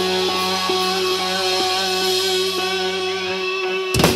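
Electric guitars and a bass guitar left ringing through their amplifiers in steady held tones, with a loud hit near the end.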